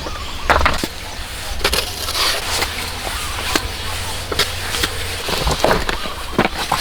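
Irregular knocks and scrapes of building materials being handled and worked by hand, about one to two knocks a second.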